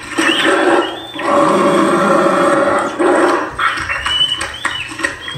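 Spirit Halloween Rick Ratman animatronic playing its sound track through its built-in speaker: a growling creature voice in several bursts, with short high squeaks of its rats.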